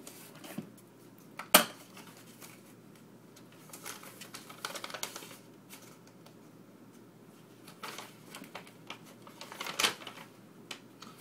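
A shipping package being opened and handled: scattered clicks and knocks, with paper rustling. A sharp click about a second and a half in and another near the end are the loudest sounds.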